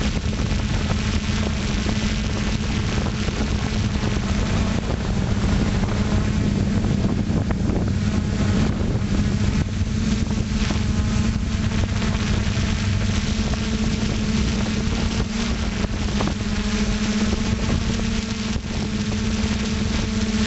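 FPV drone's propellers and motors heard from its on-board camera: a steady hum with wind noise rushing across the microphone.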